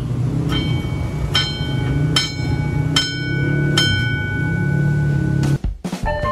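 Old electric level-crossing bell ringing, struck five times about 0.8 s apart, each strike ringing on and fading, over a steady low rumble. The sound cuts off near the end.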